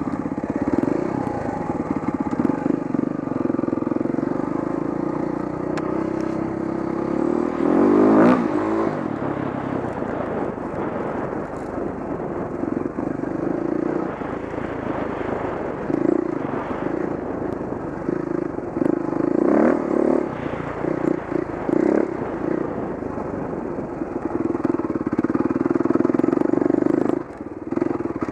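Dirt bike engine running under way, the revs rising and falling with the throttle, with the strongest surges about eight seconds in and again around twenty seconds in. The engine note drops briefly near the end.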